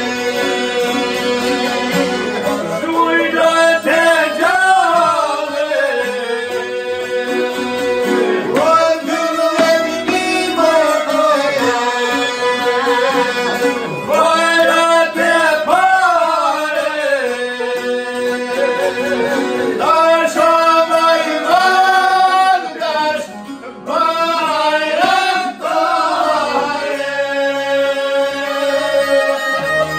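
Albanian folk song: a man singing long, ornamented phrases over plucked lutes and a violin, ending on a long held note.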